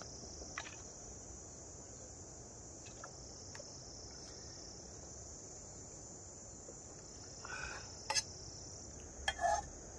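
A steady, high-pitched chorus of insects such as crickets chirring in the surrounding vegetation. Near the end a few short clinks and knocks as a fork works in the metal camping pot.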